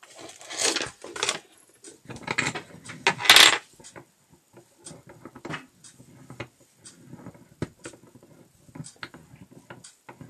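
Hard objects handled close to the microphone: irregular clinks and clatters with rustling, loudest about three seconds in, then sparser, quieter clicks.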